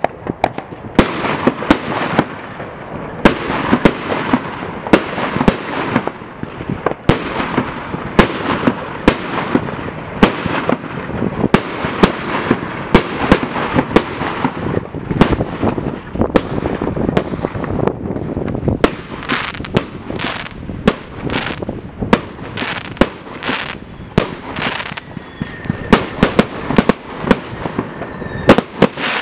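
Fireworks going off in a dense, continuous barrage: sharp bangs several times a second over a steady crackle, with a faint whistle near the end.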